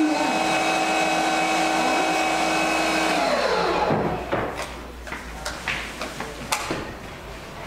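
An electric appliance motor running steadily with a constant whine, switched off a little over three seconds in and winding down with falling pitch. A few light clicks and knocks follow.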